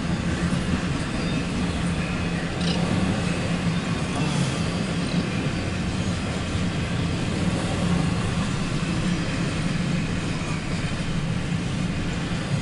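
CSX intermodal freight train's cars rolling past: the steady rumble of trailer flatcars and double-stack well cars on the rails.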